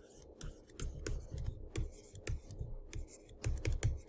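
Stylus tip tapping and scratching on a tablet surface while handwriting, an irregular run of light clicks and taps several times a second.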